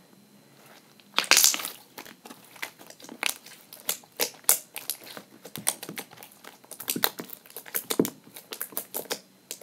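Large slime being squished and worked by hand, making quick irregular wet clicks and pops. The first second is quiet, then comes a loud crackling squish, followed by a rapid string of pops.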